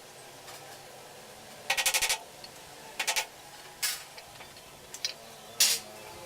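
Short bursts of rapid clicking, four of them a second or so apart, with quiet between.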